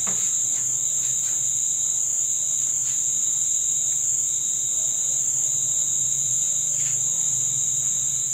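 Crickets singing in a steady, unbroken high-pitched drone, with a few faint clicks.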